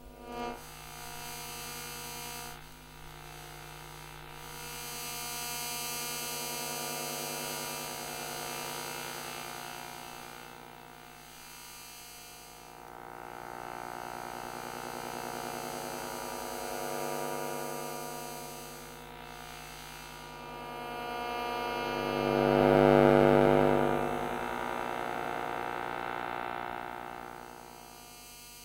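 Electrical hum and buzz from a monitor: a steady stack of tones that swells and fades several times, loudest about 22 seconds in.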